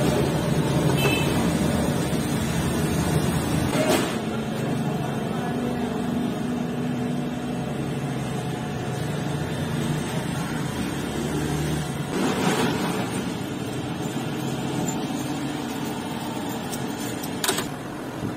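Steady low mechanical rumble of workshop background noise, with a sharp click of metal parts being handled about four seconds in and again near the end.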